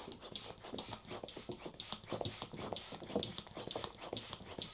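Hands rubbing and handling a long latex modelling balloon as it is inflated, giving a run of irregular rubbing and crackling strokes.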